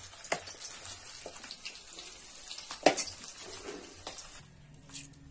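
Fish pieces frying in hot oil in an iron wok, a steady sizzle, with the metal spatula clinking against the pan twice, the second time louder. The sizzle drops away near the end.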